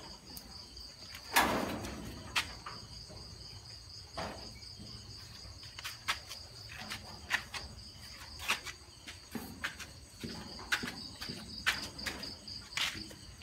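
Crickets chirring steadily at a high pitch, with scattered clicks and knocks throughout; the loudest knock comes about a second and a half in.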